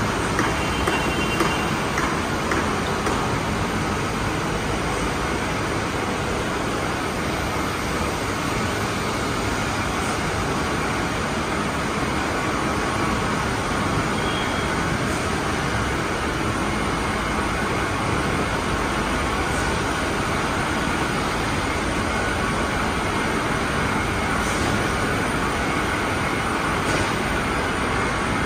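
Steady industrial machinery noise from a running vitrified tile production line: roller conveyors and motor-driven tile polishing heads working continuously.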